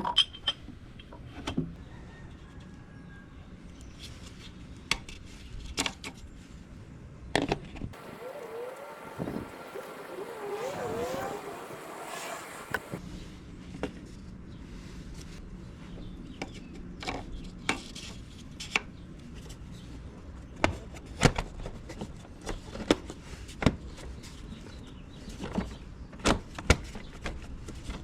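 Irregular clicks and knocks of hand tools and parts being handled during oil-change reassembly. A stretch of hissing noise with a few wavering tones runs for about five seconds in the middle.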